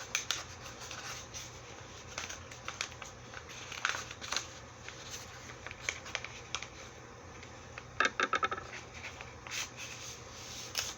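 A paper letter envelope being opened and its contents handled: scattered rustles, scrapes and small clicks, with a quick run of clicks about eight seconds in.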